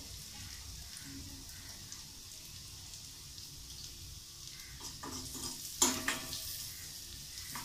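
Shallots, green chillies and an egg frying in a little oil in a small pan, making a faint steady sizzle. A spoon stirs the pan, with a few light clinks and one sharp clink against the pan about three-quarters of the way through.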